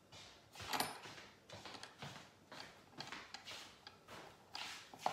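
Long screw driven by hand with a screwdriver through a hose faucet handle and lug nut into hard old barn wood, into a pilot hole. Each twist gives a short, faint scrape, about two a second, the loudest about a second in.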